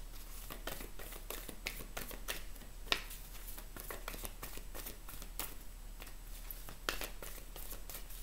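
A deck of oracle cards shuffled by hand: a run of soft, irregular card flicks and rustles, with a couple of sharper snaps about three seconds in and near seven seconds.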